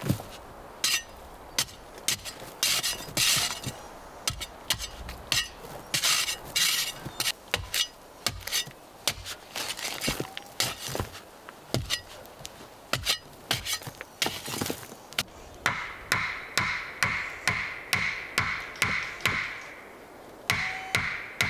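A small shovel digging into sandy soil, the blade striking and scraping the dirt in irregular strokes. Near the end an axe chops down into the ground at the bottom of the pit in quick, regular strikes, about two or three a second.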